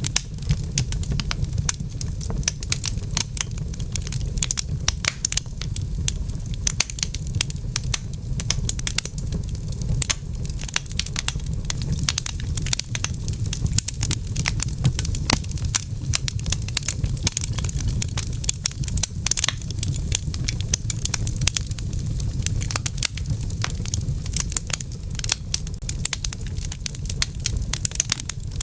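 Wood fire crackling in a fireplace: a dense, irregular stream of pops and snaps over a steady low rumble.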